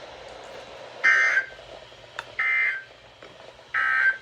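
Three short bursts of Emergency Alert System SAME digital data tones, each about half a second long and evenly spaced. Coming straight after a warning's closing line, they are the end-of-message signal that closes the alert. A single faint click sounds about two seconds in.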